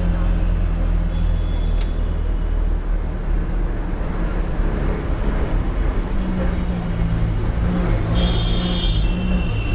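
Inside a city bus on the move: the engine runs in a steady low drone, with road and cabin noise. There is a brief high tone about two seconds in, and a short high-pitched squeal near the end.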